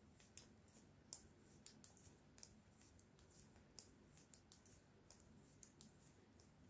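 Faint, irregular clicking of knitting needles as stitches are knitted, a dozen or so light ticks scattered unevenly.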